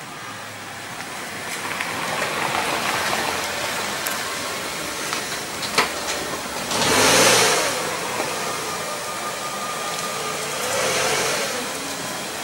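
A motor vehicle running as it passes, with a steady engine and road noise that swells to its loudest about seven seconds in, then rises again more gently near eleven seconds.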